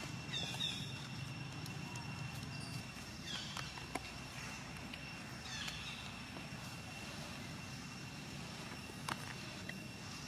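Three short high-pitched monkey squeaks, spread a few seconds apart, over a steady high whine, with two sharp clicks about four and nine seconds in.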